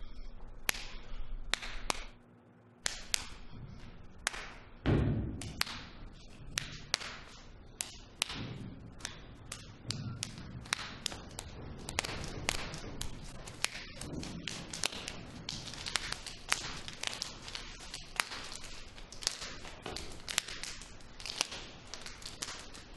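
A long irregular run of sharp knocks, taps and slaps that grows denser from about halfway, with one heavy thud about five seconds in.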